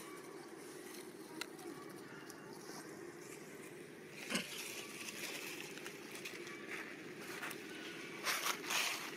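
Steady outdoor background hum with scattered sharp clicks and crackles, the loudest about four seconds in and a quick cluster near the end.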